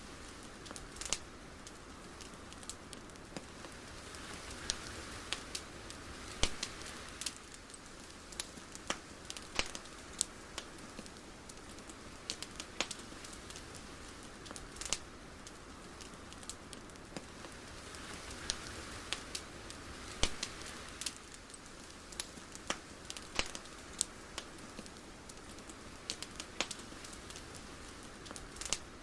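Soft steady hiss with scattered, irregular crackles and ticks, swelling gently twice.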